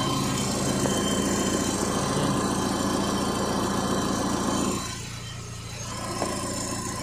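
The 2008 Hyundai Tucson's gasoline engine idles with its newly installed AC compressor running as the freshly charged system is checked. About five seconds in, the louder part of the running sound drops away suddenly, leaving a quieter steady idle hum.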